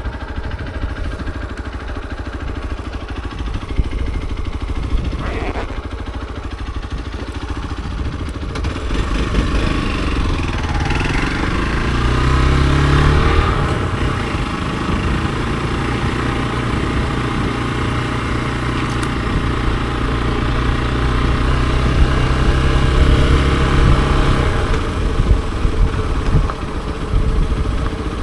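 Hero XPulse 200 4V's single-cylinder engine under way. It rumbles low at first, then rises in pitch as it accelerates about ten seconds in, holds a steady note, and drops off as the throttle closes a few seconds before the end.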